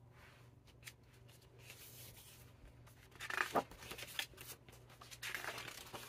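Hardcover picture book being opened and its pages turned by hand: several short papery swishes and rustles, the loudest about halfway through.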